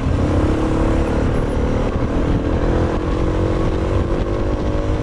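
Suzuki DR650's single-cylinder four-stroke engine pulling in gear, its pitch rising slowly as the bike accelerates, under heavy wind rumble on the microphone.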